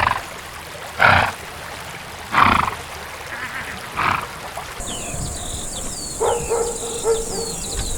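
A horse snorting four times, each a short noisy blow, about a second apart. About five seconds in the sound changes to steady insect buzzing and bird chirps, with a drawn-out pitched animal call near the end.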